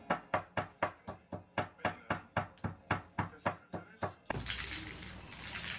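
Pestle working in a small glass cup, grinding in quick, even strokes of about four a second. The strokes stop abruptly about four seconds in, giving way to a steady hiss.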